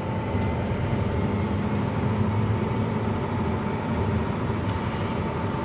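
Medium bus driving along a road, heard from inside the driver's cab: steady engine and road noise, mostly low-pitched, with a faint steady tone above it.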